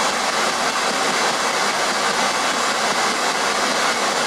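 Spirit box scanning radio stations, giving out a steady hiss of static.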